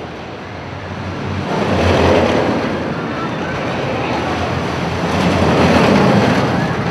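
Roller coaster train rumbling and rushing along its track. The noise swells about a second and a half in and again near the end as the cars pass, with riders screaming in the mix.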